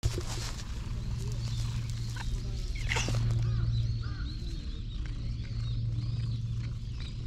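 Tabby cat purring as it is stroked: a low steady rumble that fades briefly a few times. Small birds chirp high over it.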